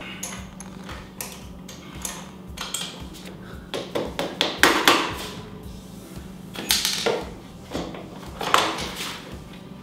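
Hand tools working on a motorcycle's front axle pinch bolts and axle nut: about half a dozen short bursts of clicking and clatter, spaced a second or so apart, over a steady low hum.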